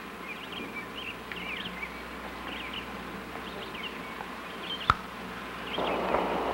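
Small birds twittering: many short quick chirps over a steady background hiss. A single sharp click comes about five seconds in, and a rustling scrape starts near the end.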